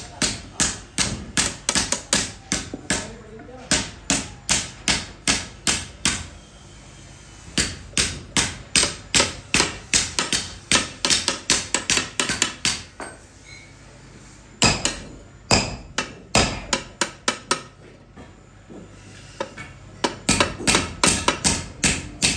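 Hand hammer striking red-hot steel at a sword's tang and guard: sharp metallic blows at about three a second in runs, broken by several short pauses.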